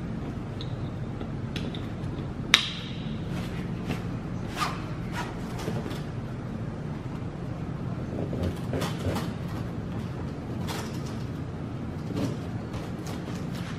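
Seat-strap clips and inflatable vinyl seats of an Intex Explorer K2 kayak being handled and fastened: one sharp click about two and a half seconds in, then scattered lighter clicks and knocks, over a steady low hum.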